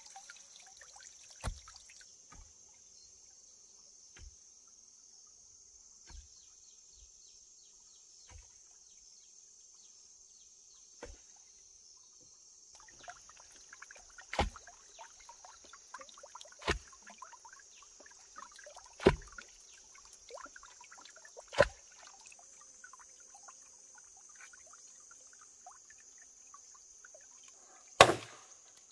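Chopping strokes on wood, a few faint ones at first, then louder and regular about every two and a half seconds from about halfway, with a loud stroke near the end, over a steady high hiss.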